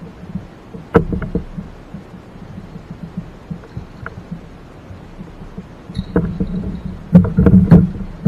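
Hollow knocks and thumps against a plastic fishing kayak as a landing net is swung in and handled aboard: one sharp knock about a second in, a few light ones after, then a cluster of knocks near the end.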